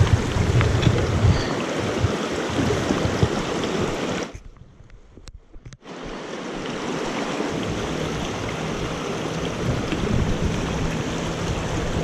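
Mountain creek water rushing steadily, with a few low thumps on the microphone in the first second or so. The sound drops out almost entirely for about a second and a half, starting about four seconds in, then the rushing water returns.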